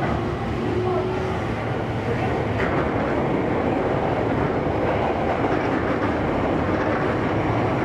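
Toei 10-300 series electric train heard from inside the passenger car while running between stations in a subway tunnel: a steady rumble of wheels on rails with some clickety-clack from the rail joints.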